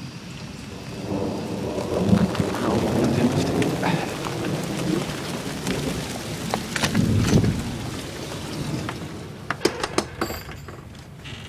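Close thunder rumbling and crackling. It builds about a second in, swells twice and dies away after about eight seconds. A few sharp clicks follow near the end.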